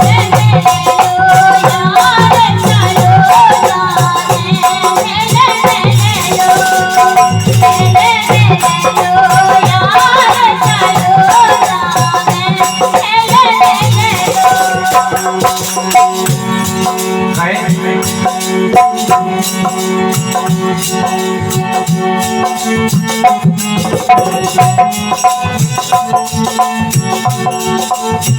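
Instrumental break in a Hindi-belt folk song: a steady beat of drums with a rattling shaker, under a wavering melodic line for about the first half and steadier held tones after that.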